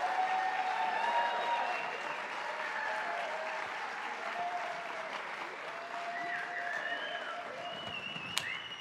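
Audience applauding steadily, with voices calling out and cheering over the clapping.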